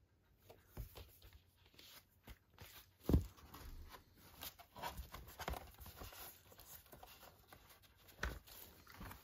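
Hands handling a cardboard gatefold LP sleeve: irregular rustling and scraping of card, with a sharp knock about three seconds in and a smaller one near the end.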